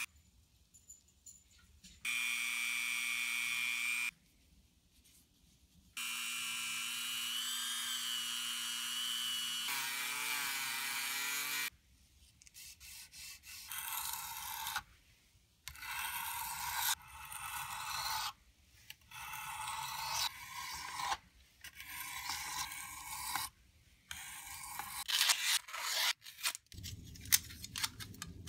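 A small handheld rotary tool whines as its wheel grinds the end of a folding knife. It runs in spells and winds down with a wavering, falling pitch. Then a steel knife blade is drawn over a whetstone in repeated scraping strokes, about one every second or two. Metal knife parts clink together near the end.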